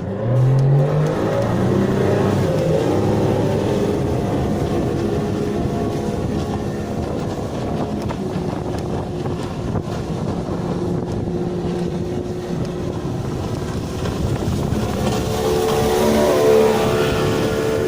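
A motor engine revving up in the first second, then running steadily, with a higher-pitched tone growing louder about fifteen seconds in.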